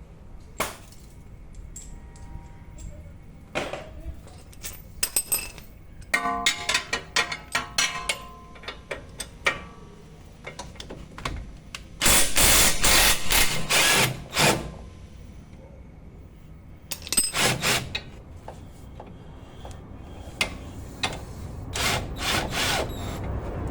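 A handheld power tool running in short bursts, the longest about two and a half seconds near the middle, with shorter runs later on. Between them come clinks and rattles of metal tools and parts.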